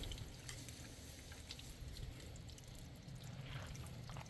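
Faint water dripping and trickling from a ball valve with a slow leak.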